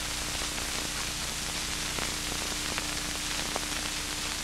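Steady hiss with a faint steady hum and a few faint clicks: the surface noise of an old film soundtrack, with no music.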